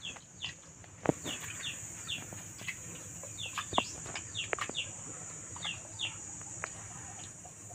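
Birds chirping repeatedly in short, quick falling notes, often two at a time, over a steady high insect buzz.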